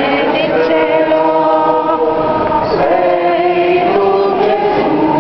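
A group of voices singing a hymn in unison, with long held notes that slide from one pitch to the next.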